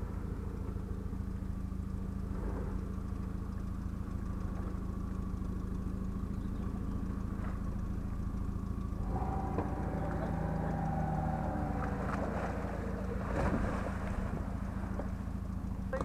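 Renault Duster's engine running steadily, then revving harder from about nine seconds in as the car works its wheels through deep mud, with a short louder rush a few seconds later.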